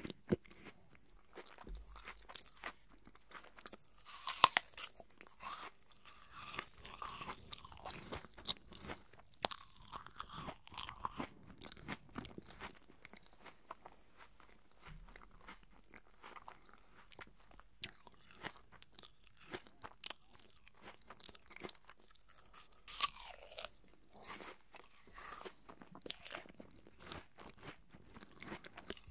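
A person chewing crisp, juicy raw apple slices right at the microphones: irregular wet crunches and mouth smacks, with one sharp, loud crunch about four seconds in.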